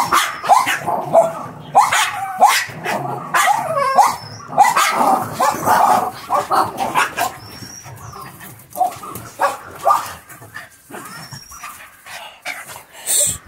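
Small dogs barking and yipping as they scuffle together: a rapid run of short, sharp barks and yelps for the first several seconds, then fewer, more scattered barks.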